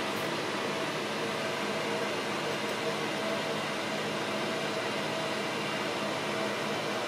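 Steady mechanical whir and hiss with a faint constant hum, like a running fan.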